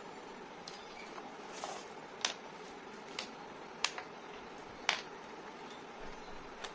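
Small plastic and metal strap anchor links and a split ring being handled and set down on a wooden tabletop: four sharp clicks a second or so apart, with softer handling noises between, over a steady hiss.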